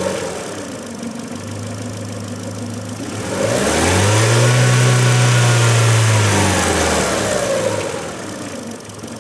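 Renault Mégane II RS 2.0 turbo four-cylinder engine idling, revved once about three seconds in, held up for a few seconds, then dropping back to idle. Off idle it makes a strange noise that the owner thinks sounds like worn engine bearing shells; at idle it makes no such noise.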